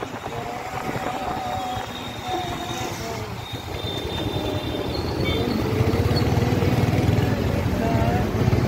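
Scooter engine running under way, with road and wind noise and surrounding traffic. The low rumble grows louder from about halfway through.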